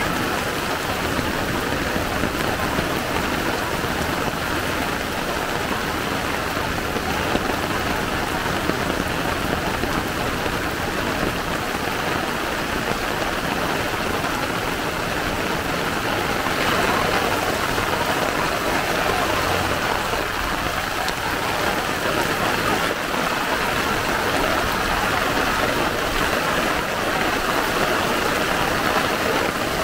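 Heavy typhoon rain pouring onto a flooded street: a dense, steady hiss that grows a little louder about seventeen seconds in.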